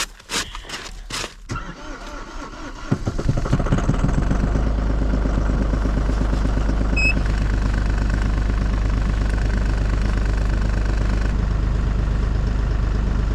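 A few crunching sounds, then a tractor engine cranks and catches about three seconds in and settles into a steady idle.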